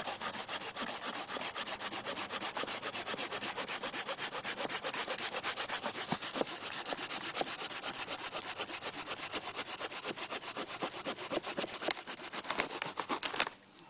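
Bahco Laplander folding saw cutting through a fallen juniper log about five inches thick, in fast, even strokes of about four a second. The sawing stops shortly before the end with a couple of sharp knocks, as the cut goes through.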